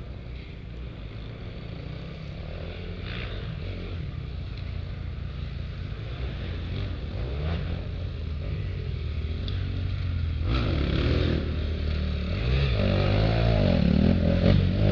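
Off-road dirt bike engines revving up and down as the riders work through the course, growing steadily louder as they approach.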